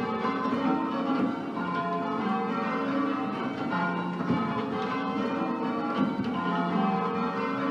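Ring of ten church bells, a 13 cwt ring in F cast by Mears & Stainbank, Gillett & Johnston and Whitechapel, being rung in change ringing: a steady, unbroken run of overlapping bell strokes at different pitches.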